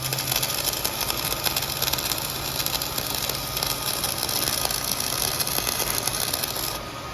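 Flux-core wire-feed welding arc crackling steadily over a low hum as a bead is run, stopping shortly before the end.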